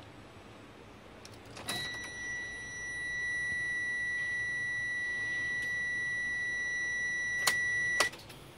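Steady high-pitched electronic warning buzzer in a Mitsubishi Fuso Canter truck cab, starting with a click as the ignition key goes in and sounding for about six seconds. Two sharp clicks near the end, as the key is turned and the dash lights come on, cut it off.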